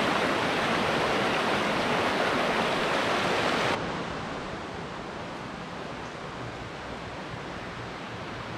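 Steady rushing of water, loud for the first few seconds, then cutting off suddenly to a quieter, even hiss for the rest.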